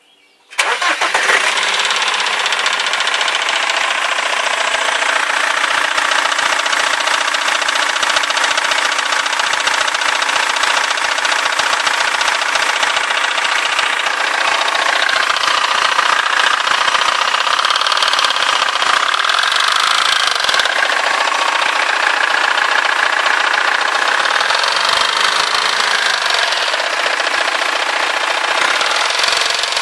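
The diesel engine of a 2005 BMW E90 320d running steadily, with a rapid knocking and a vibrating rattle that the owner presents as a fault.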